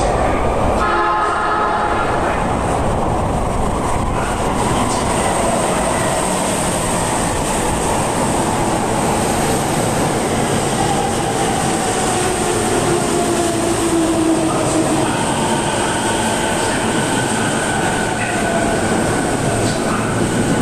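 Toei Shinjuku Line subway train running into the underground station: a constant wheel-and-rail rumble, with a short pitched tone about a second in. The electric traction motors' whine falls in pitch as the train brakes, then settles into a steady high whine near the end.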